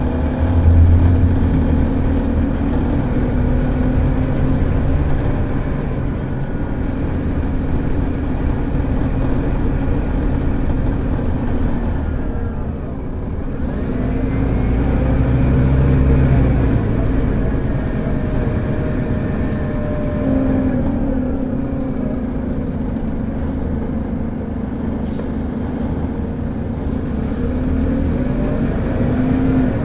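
Scania DC9 five-cylinder diesel engine of a Scania K280UD double-decker bus, heard from inside the passenger cabin, pulling under full throttle on an uphill climb. The engine note dips about twelve seconds in and then builds again.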